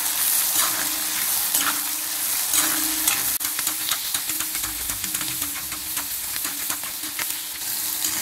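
Chopped shallots, garlic and a green chilli sizzling in hot oil in an iron kadai, stirred with a steel spoon that scrapes and knocks against the pan about once a second.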